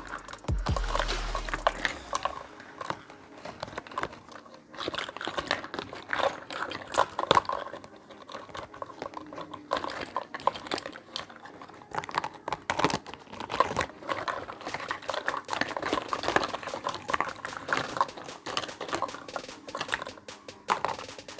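Small pieces of a miniature toy kitchen set being handled and set down: irregular light clicks, taps and rustles.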